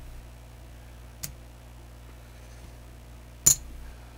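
Casino chips clicking as they are set down and stacked on the craps layout: a faint click about a second in and a sharper, ringing click near the end, over a low steady hum.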